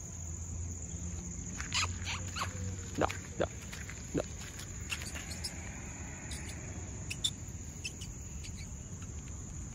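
Outdoor ambience dominated by a steady, high-pitched insect drone. A handful of short, sharp chirps and clicks are scattered over it, mostly about two to four seconds in and again near the end.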